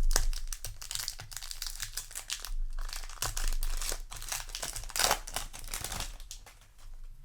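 Foil wrapper of a Yu-Gi-Oh! booster pack crinkling and tearing as the pack is handled and opened, in a run of crackles that thins out about six seconds in.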